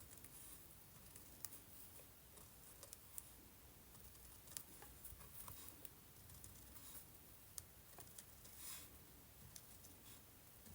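Near silence with scattered faint taps and clicks of a pen marking dots on textile.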